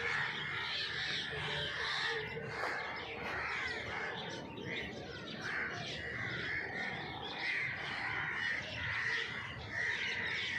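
Many birds calling at once in a dense evening chorus, short overlapping calls going on without a break.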